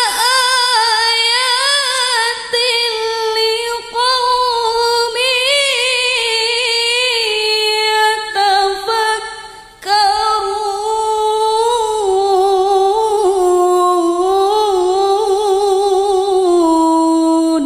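A woman's unaccompanied voice reciting the Qur'an in melodic tilawah style into a microphone. The phrases are long and ornamented with quavering turns. There is a short breath about ten seconds in, and the second phrase steps down lower in pitch before breaking off sharply at the end.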